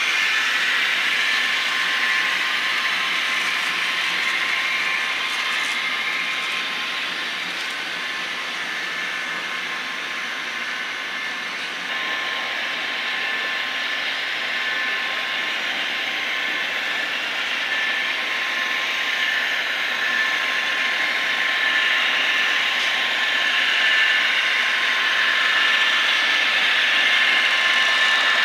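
Model diesel locomotives and cars running past on a model railroad, a steady whirring of small motors and wheels on rail with a thin high whine. It eases somewhat in the middle and grows louder again near the end as another train approaches.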